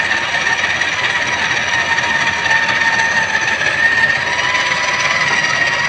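Heavy electric drill running steadily, turning a hone inside a cylinder liner of a Massey Ferguson 385 tractor engine block to polish the liner: a constant whine over a scraping rub.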